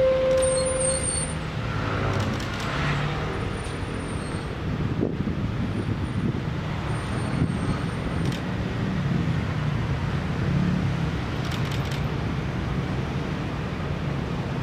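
Steady urban road traffic noise, with a brief steady tone in the first second.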